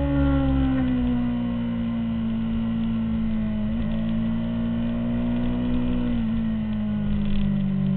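2003 Honda CBR600RR's inline-four engine running at high revs, heard from onboard the bike, its steady note falling slowly in pitch with a slight dip about six seconds in.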